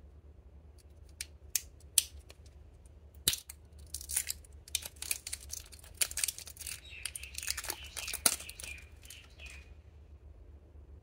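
Clear plastic shrink wrap crinkling and tearing as it is peeled off a small corked glass vial of glitter: a few sharp clicks at first, then several seconds of dense crackling that stops shortly before the end.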